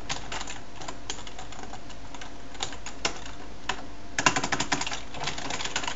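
Computer keyboard keys clacking as code is typed: scattered single keystrokes at first, then a quick run of keystrokes about four seconds in.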